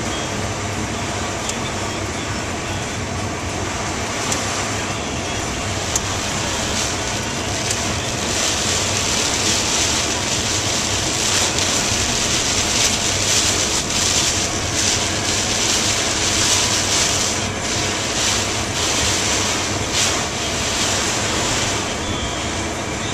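Heavy hurricane rain and wind on a moving car, heard from inside the cabin: a steady rush of rain on the windshield and roof over the car's road noise. It grows heavier through the middle, with scattered sharp hits of drops and gusts.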